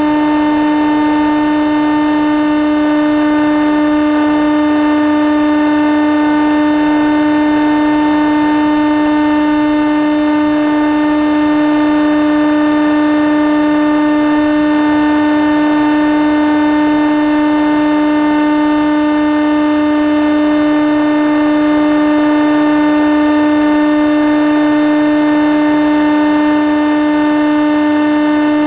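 Motor and propeller of a model aircraft running at steady throttle, heard from the camera it carries: one constant, unwavering buzzing hum with many overtones.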